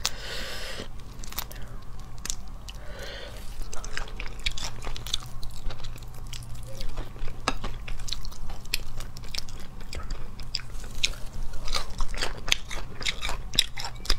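Cooked crayfish shells cracking and crackling as they are peeled apart by hand, in many short sharp snaps, with chewing in between.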